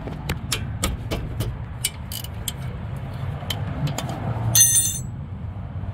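Hand ratchet clicking a few times a second in irregular strokes as it turns a nut on the car's front suspension. About four and a half seconds in, a brief high metallic ring as a steel wrench strikes metal.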